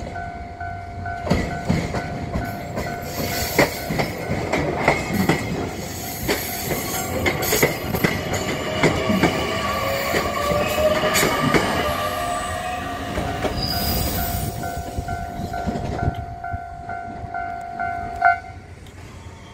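Japanese level-crossing alarm ringing in a steady repeating pattern while a train rolls past, its wheels clacking over the rail joints. The alarm stops suddenly near the end.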